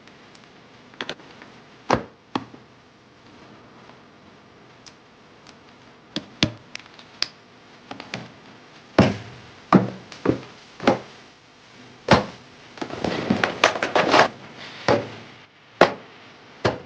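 Clicks, taps and knocks of computer parts being handled and fitted during a PC build. They come sparse at first, then closer together and louder, with a short run of rapid rattling clicks about two-thirds through.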